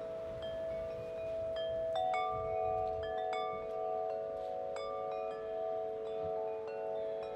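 Chimes ringing: light, high strikes at irregular intervals, several a second, over a few steady held tones.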